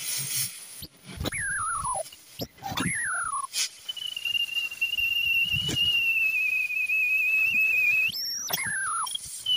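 Oxy-propane cutting torch cutting through steel: a hissing jet with a steady high whistle lasting several seconds, a few short whines that drop in pitch, and occasional sharp pops.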